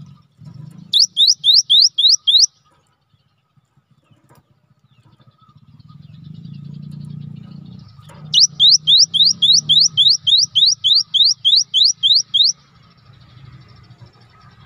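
Cinereous tit (gelatik batu) singing: a quick run of about six sharp rising whistles about a second in, then a longer run of some fifteen, about four a second.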